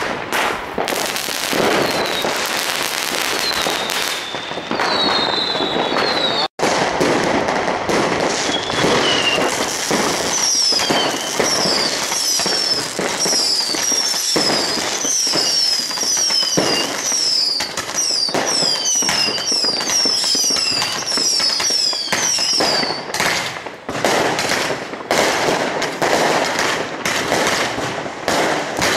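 Fireworks and firecrackers going off densely, one bang and crackle on top of another with no pause. From about ten seconds in until about twenty-three seconds in, a run of short falling whistles repeats rapidly above the bangs.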